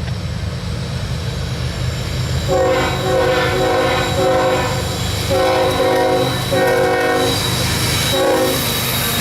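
Air horn on the lead locomotive of a CSX freight train, an ES44AH diesel, sounding a series of blasts from about two and a half seconds in: several longer blasts with short breaks, then a short one near the end. Under it runs the steady rumble of the passing train.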